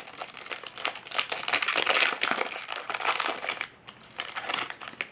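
Crinkling of a hockey card pack's wrapper as it is handled, dense and continuous for about three and a half seconds, then a few last crackles.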